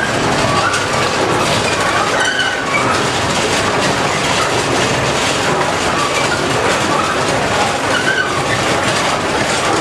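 Traditional olive mill's stone rollers turning in their stone basin, driven by a vertical shaft and overhead gearing: a steady clatter and rumble of machinery with short high squeaks now and then.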